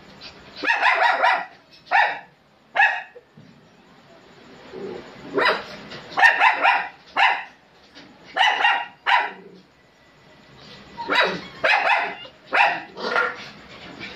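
Small dog barking in short sharp yaps, about a dozen in loose groups of one to three, with brief pauses between the groups.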